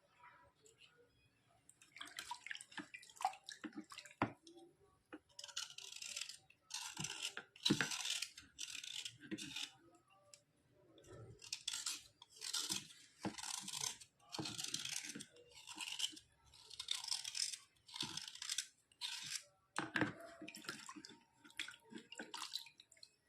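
Repeated scraping strokes across a board coated with white slate-pencil residue, roughly one short hissing stroke every half-second to second, with a few sharp clicks among them.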